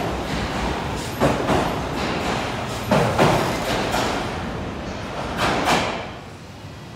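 Odakyu Romancecar VSE (50000 series) electric train pulling out past the platform: a steady rumble of the passing cars with wheels clacking in pairs three times. The sound drops away near the end as the rear car goes by.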